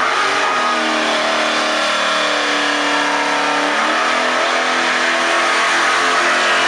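1970s Pontiac Firebird doing a burnout: the engine revs up over the first second and is held at high revs while the spinning rear tyres hiss. The engine note shifts about four seconds in.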